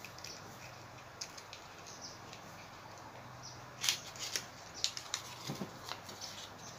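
Pleated paper cupcake liners crinkling and rustling as they are handled and pulled apart, with a cluster of sharper crackles from about four seconds in.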